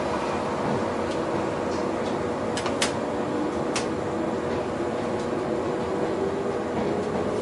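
Inside the passenger car of a JR West 117-series electric train with MT54 traction motors, pulling slowly out of the station: a steady hum of running gear and ventilation. A few sharp clicks come about three seconds in.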